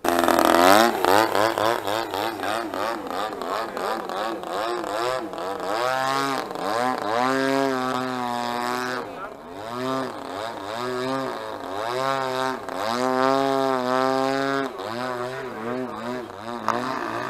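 Single-cylinder two-stroke DLE-20 gas engine and propeller of a Sbach 342 RC aerobatic plane in flight, running on a chainsaw carburettor. The steady engine note swoops down and back up in pitch several times as the plane manoeuvres.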